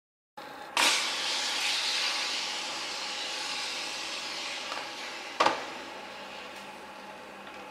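Burning car: a sharp bang about a second in, as a part of the car bursts, followed by a loud hiss that fades slowly over several seconds, then a second sharp bang near the middle.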